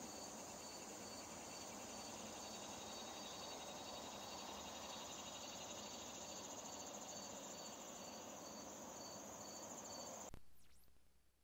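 Faint insect chorus: a cricket chirping about twice a second over a steady high trill. It cuts off suddenly near the end.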